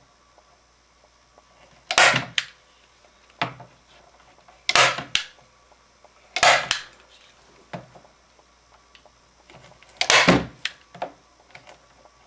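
Hand staple gun firing staples through thin plywood gussets into a wooden wing rib: four loud snaps a second or more apart, with fainter clicks in between.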